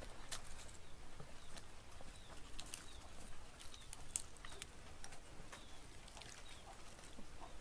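Faint eating sounds: a person chewing, with scattered light clicks and smacks and a spoon working at fried fish on a plate.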